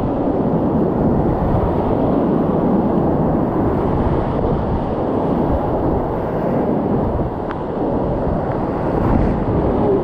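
Loud, steady rush of whitewater rapids churning around a kayak in the middle of the run.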